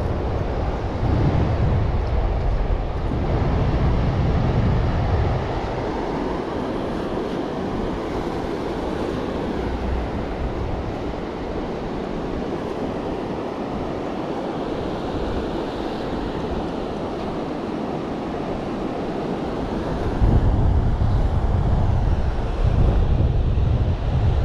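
Wind buffeting the microphone over a steady wash of ocean surf, with heavy gusts for the first few seconds and again near the end.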